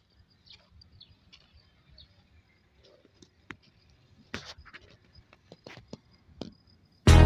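Faint, scattered short clicks and ticks over a faint steady high tone, then loud music cuts in abruptly near the end.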